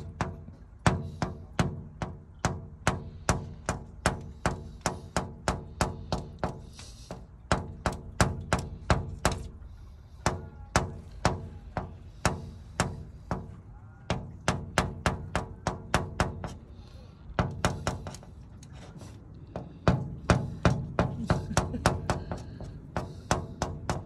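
A small white cockatoo tapping its beak on window glass in quick runs of sharp knocks, about three a second, with a few short pauses.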